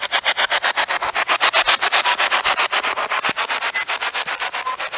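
Heavy rain close on the microphone, heard as a rapid, even scratchy pulsing of about nine beats a second.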